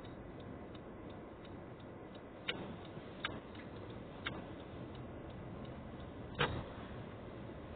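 Quiet, steady low rumble of a car moving slowly, heard from inside the cabin, with a faint regular ticking and four sharp knocks, the loudest about six and a half seconds in.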